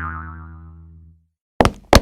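Cartoon boing sound effect, a springy wobbling tone fading out; near the end sharp knocks begin, about three a second.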